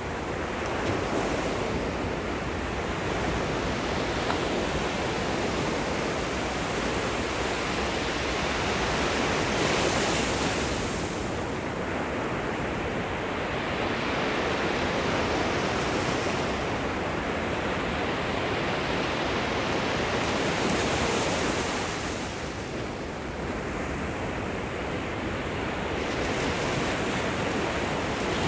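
Gentle surf at the shoreline: small waves breaking and washing up the beach in a continuous hiss that swells and eases every few seconds, with some wind on the microphone.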